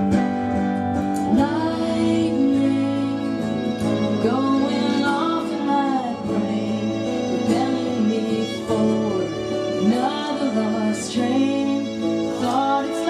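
Live acoustic band playing: acoustic guitars strumming and a violin, with a woman singing lead.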